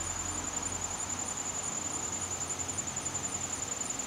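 Insects trilling steadily: one high, fast-pulsing trill, with a fainter, higher call pulsing about three times a second.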